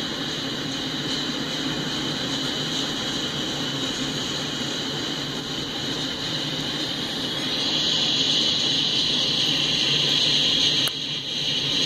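Freight cars rolling past on steel wheels: a steady rumble with a rushing, hissing wheel-on-rail noise over it, which gets louder about seven and a half seconds in.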